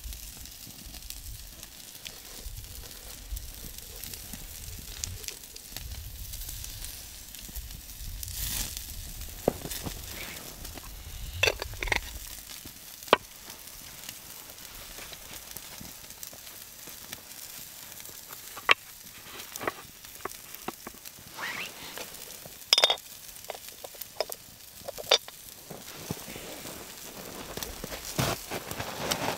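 Steak and asparagus sizzling on a wire grill rack over campfire coals: a steady hiss, broken now and then by sharp pops and crackles.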